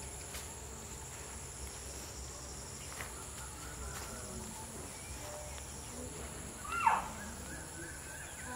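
Steady, high-pitched insect chorus of crickets, with faint chirping calls in the background. Near the end a single short call glides steeply down in pitch, the loudest sound.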